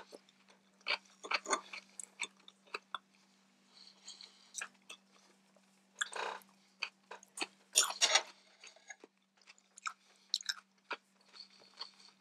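A person chewing and biting food close to the microphone: irregular wet clicks, smacks and crisp crunches, with louder bites into a cucumber slice.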